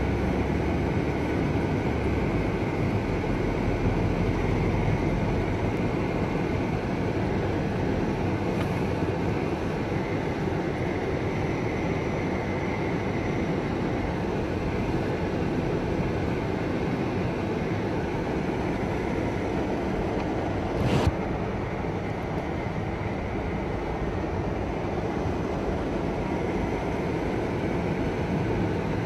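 Car driving slowly over a snow-packed road, heard from inside the cabin: a steady low rumble of engine and tyres, with a single sharp click about three-quarters of the way through.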